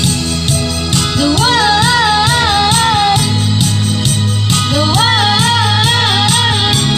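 Background music: a song with a steady beat and a sung melody that wavers in vibrato, one phrase starting about a second in and another near five seconds.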